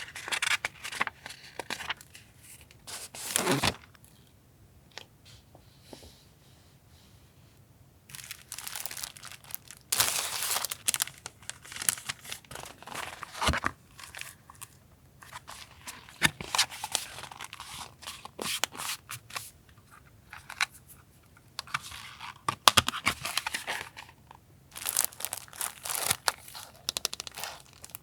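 Stationery packaging and paper items being handled: crinkling and tearing in irregular bursts, with a few sharp clicks and a quiet pause of several seconds near the start.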